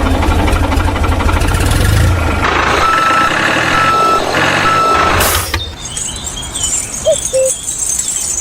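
Tractor engine chugging with a fast, even beat, with three short beeps like a reversing alarm partway through. The engine cuts off about five and a half seconds in, leaving a quieter hiss.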